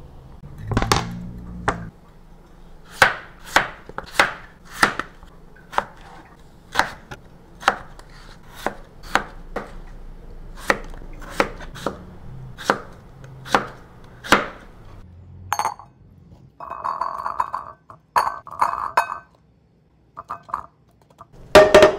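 Kitchen knife slicing chayote squash on a cutting board: a run of sharp chops, one or two a second, that stops about two-thirds of the way through. A short stretch of a steadier scraping sound follows, then a loud knock near the end.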